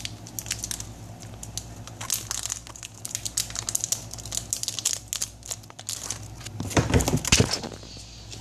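Close rustling and crinkling handling noise with many irregular clicks, rising to a louder burst near the end.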